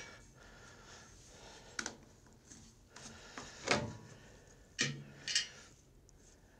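A few light clicks and knocks as a small paper air filter element is pulled off its stud and out of a plastic small-engine air cleaner housing, the loudest a little past halfway.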